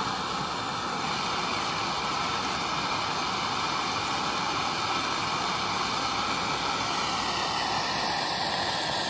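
Handheld gas torch burning with a steady hiss, its flame heating the cap of a homemade oxalic acid vaporizer pipe.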